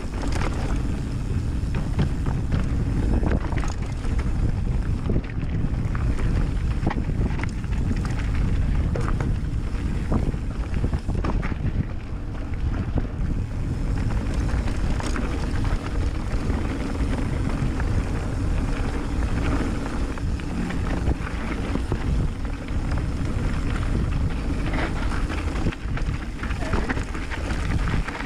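Mountain bike ridden fast down a trail: wind rushing over the microphone, tyres rumbling on the surface, and the bike rattling and clattering over bumps and stones.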